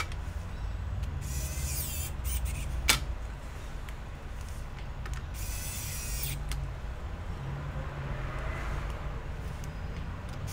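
Electric precision screwdriver whirring in two short spells, about a second in and about five seconds in, driving screws into a laptop's logic board. A sharp click comes near three seconds, over a steady low hum.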